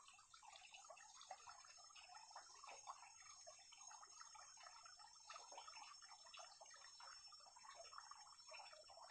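Faint soft clicks and scrapes of a spoon stirring chopped cassava leaves and chicken pieces in a bowl, over a steady high hiss.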